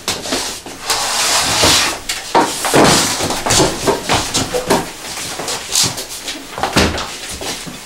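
Wooden chairs scraping and knocking as people sit down at a dining table, with footsteps and a door being handled; a longer scrape about a second in and scattered knocks throughout.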